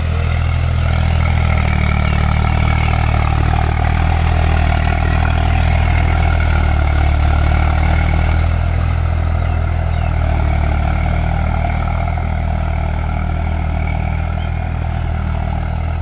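Eicher tractor's diesel engine running steadily at a constant, low pitch.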